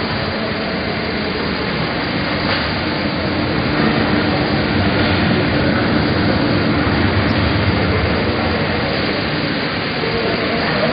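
Industrial packaging machine running: a steady mechanical din with a faint constant hum underneath.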